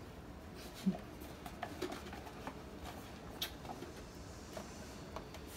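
Faint, scattered clicks and light taps from a plastic food container being handled while diced peppers are sprinkled over a foil tray of nachos. One slightly louder knock comes about a second in.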